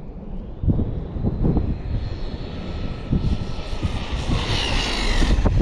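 Losi LMT RC monster truck at full throttle, its brushless electric motor and drivetrain giving a high whine on a top-speed pass. The whine grows louder toward the end and drops in pitch as the truck passes close. Wind rumbles on the microphone throughout.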